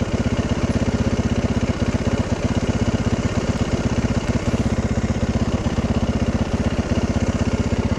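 Yamaha 450 dirt bike's single-cylinder four-stroke engine idling at standstill, with a steady, even beat.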